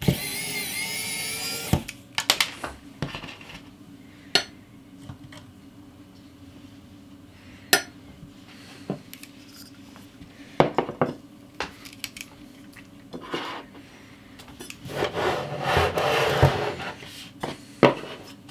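A pen-style electric precision screwdriver whirs for about a second and a half as it backs a screw out of a graphics card's backplate. Sharp metal clicks and clinks follow as screws and a metal parts tray are handled, with a longer rattling clatter near the end.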